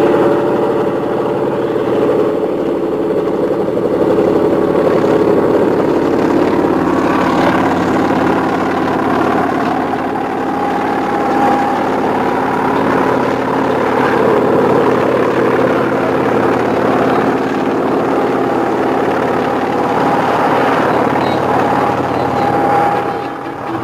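A steady engine drone running without a break.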